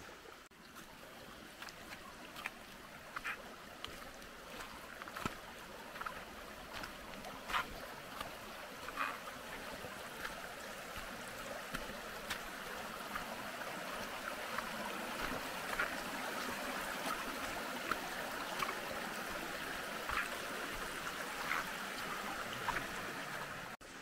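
Shallow mountain stream running over rocks, a steady wash of water that grows gradually louder, with occasional short clicks.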